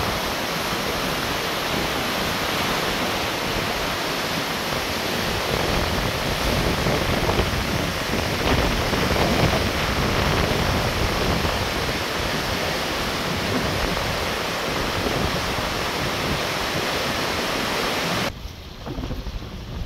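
Muddy river in flood rushing past concrete bridge piers: a steady, loud rush of turbulent water. About a second before the end the sound drops abruptly to a duller, quieter rumble with wind buffeting the microphone.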